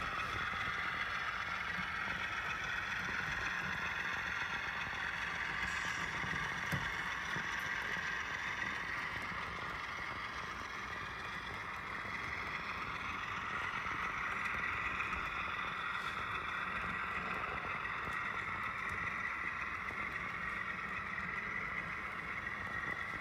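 HO-scale model freight train rolling slowly along the track: a steady whir of metal wheels on rails and the locomotives' motors, with no breaks.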